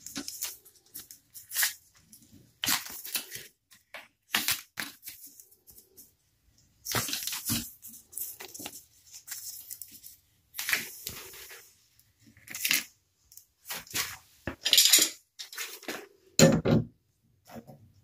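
PTFE thread-seal (Teflon) tape being pulled off the roll and wrapped around a copper water pipe stub, in short irregular bursts of rustling and tearing noise. Near the end there is a louder knock.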